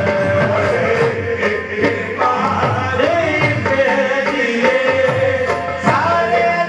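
Qawwali: a male lead voice singing a held, wavering melody over a steady beat of hand drums.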